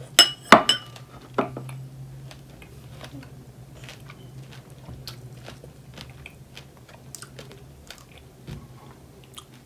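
Close-up chewing and mouth sounds of people eating fresh strawberries, with a few sharp clinks of ceramic bowls about half a second in.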